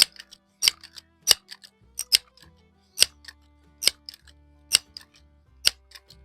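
Background music: held low notes that change pitch, with a sharp clicking percussion hit about once a second.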